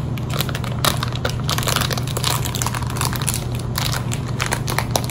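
Plastic bread wrapper crinkling as it is handled and opened, a run of short, irregular crackles.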